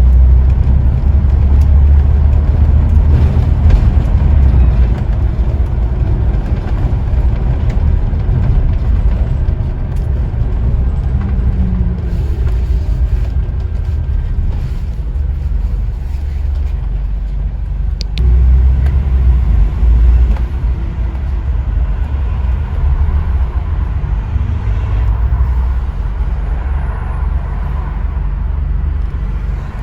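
Scania N94UD OmniDekka double-decker bus heard from on board, its diesel engine and road noise making a steady low rumble. The rumble is louder at the start and swells again for a couple of seconds just past the middle.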